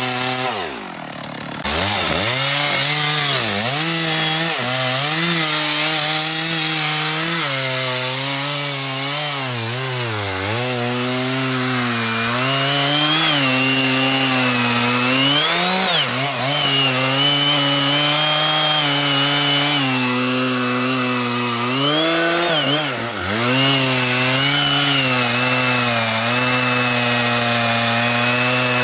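Large Stihl two-stroke chainsaw running hard as it cuts through a big oak log, the engine pitch wavering as the chain loads and unloads in the wood. Twice, about a second in and again a few seconds before the end, the revs drop sharply and then pick back up.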